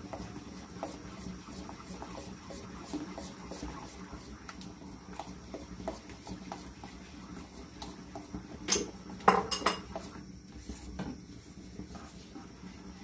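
Metal spoon stirring thick mango purée in a pan, with light clicks and scrapes against the pan throughout and a louder cluster of clinks about nine seconds in.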